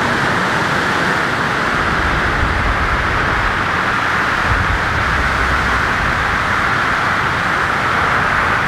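Steady roar of ocean surf breaking on the reef, with wind buffeting the microphone in irregular low rumbles.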